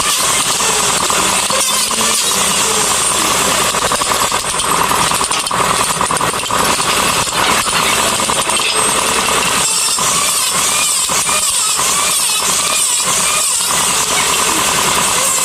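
Handheld power tool running steadily as it works wood, with a dense, loud buzz that shifts slightly as the tool bears into the wood.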